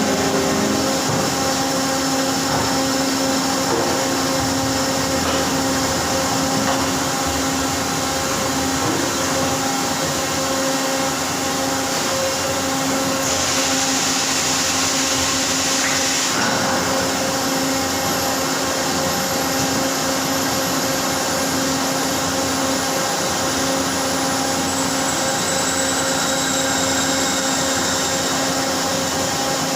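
Factory machinery running steadily with a constant hum, and a hiss for about three seconds midway.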